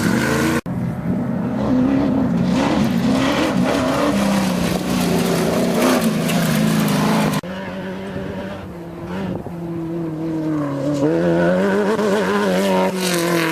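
Engines of off-road desert race vehicles running hard, pitch rising and falling as they rev. The sound breaks off abruptly about half a second in and again about seven seconds in.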